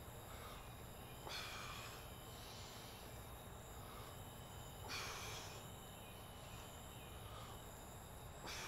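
A man breathing out hard three times, about every three and a half seconds, as he pulls himself up on a pull-up bar, over a faint steady chirr of night insects.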